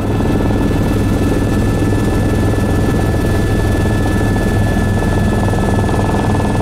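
Helicopter heard from inside its cabin in flight: a loud, steady drone of rotor and engine with a constant high whine.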